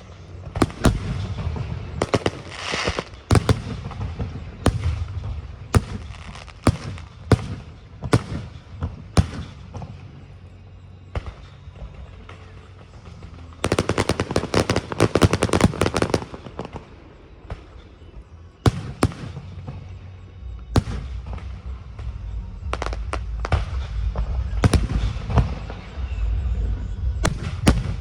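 Aerial fireworks bursting in a string of sharp bangs, roughly one a second. About halfway through, a dense rapid volley of bangs and crackles lasts a couple of seconds.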